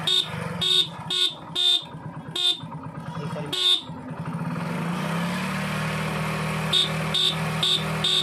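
Hero Splendor Plus motorcycle idling with a steady low hum. Over it come short electric beeps, a few irregular ones in the first four seconds, then an even beeping about twice a second from about seven seconds in.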